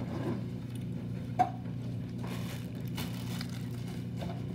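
Objects being handled and set down: a few light clicks and soft rustles of packaging, over a steady low hum.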